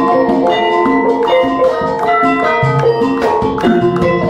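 Javanese gamelan ensemble playing: bronze gong-chimes and metallophones strike ringing notes in a dense, even pulse, with drum strokes.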